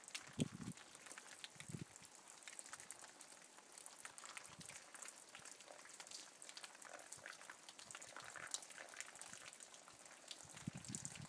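Faint light rain pattering and dripping: scattered soft crackling ticks over a light hiss. A few dull low thumps come near the start and again just before the end.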